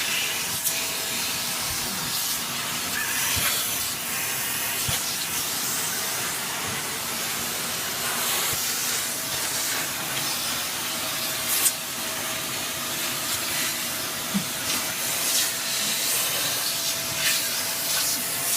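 Vacuum cleaner running steadily: a constant hiss of rushing air with a faint motor whine, broken by a few brief knocks.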